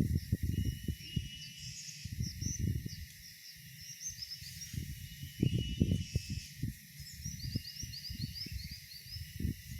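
Outdoor swamp ambience: a steady high insect drone with runs of short, quick bird chirps, around two seconds in and again from about seven seconds. Underneath, irregular low rumbles and knocks.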